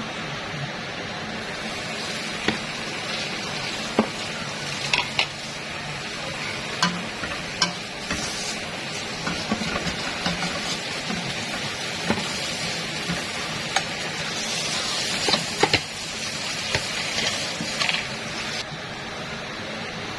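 Food sizzling as it fries in a pan, a steady hiss, while it is stirred, the spatula knocking sharply against the pan now and then.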